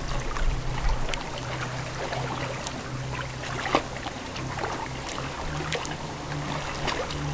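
Lake water lapping and splashing in small irregular slaps, over a low steady drone that steps up in pitch near the end.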